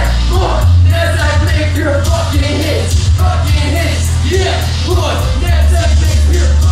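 Loud live hip-hop set: a backing track with a heavy bass line, and a man's voice rapping into a microphone over it, the words not clear.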